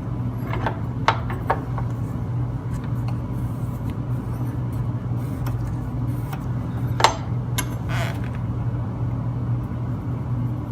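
Metal mounting brackets clinking and tapping a few times as they are handled against the side skirt, with a sharp click about seven seconds in. A steady low hum runs underneath.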